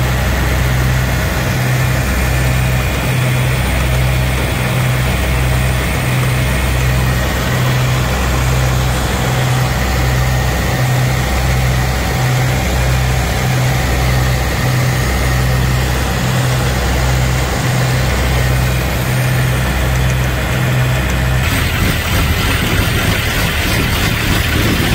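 Fishing boat's inboard diesel engines running steadily, with a slow, even low throb. The sound changes to a rougher, hissier engine noise about three to four seconds before the end.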